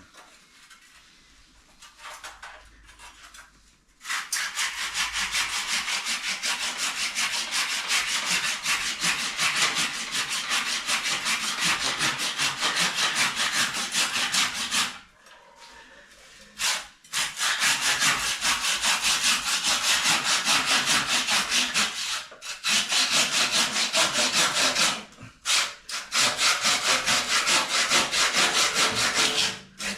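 Hand saw cutting with quick, repeated back-and-forth strokes. It starts about four seconds in and goes on in several long runs, broken by short pauses.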